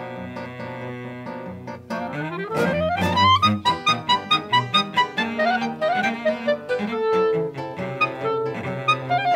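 Clarinet, cello and classical guitar trio playing a contemporary chamber piece: a held chord for about two seconds, then a fast rising run, then quick plucked guitar notes under sustained clarinet and bowed cello lines.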